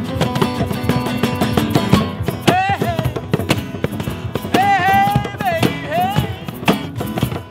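Acoustic blues jam: several strummed acoustic guitars over hand drums, a djembe and a cajon. A high, wavering melody line joins briefly about two and a half seconds in, then again for a couple of seconds from about four and a half seconds in.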